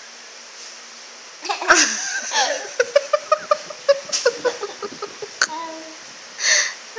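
A toddler giggling: after a quiet start, a burst of laughter about a second and a half in, then a run of quick short giggles, and a breathy puff near the end.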